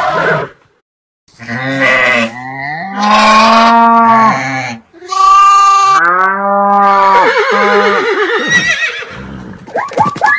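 A string of livestock-type animal calls, used as cartoon sound effects: several long, drawn-out calls follow one another after a short gap. One of them breaks into a quick quavering trill, and short rapid calls come near the end.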